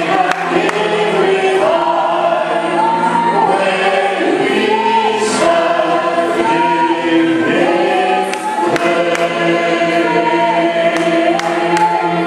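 Many voices singing a slow hymn together, holding long notes over a steady sustained accompaniment.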